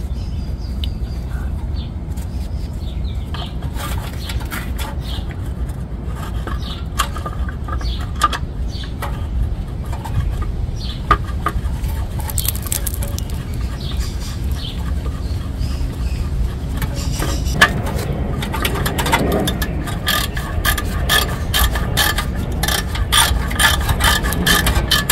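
Ratchet and socket clicking in short runs as bolts on a 2006 Honda Odyssey's driveshaft bearing and exhaust heat shield are turned. The clicking comes faster and closer together over the last several seconds, over a steady low rumble.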